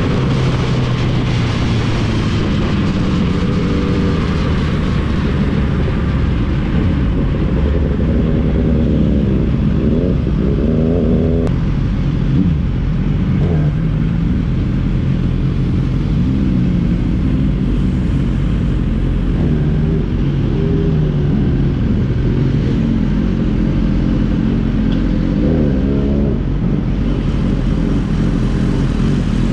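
Sport motorcycle engines running at low speed over a steady low rumble, the pitch rising and falling a few times with short blips of throttle.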